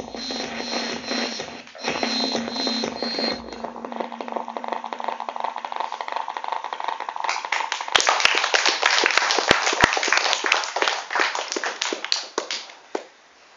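Music ends a few seconds in, leaving a fading held tone. Then, after about seven seconds, an audience claps for about five seconds before the applause dies away.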